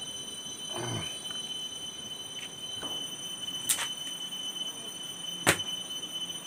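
Two sharp knocks about two seconds apart, the second louder, as a green bamboo cooking tube is knocked.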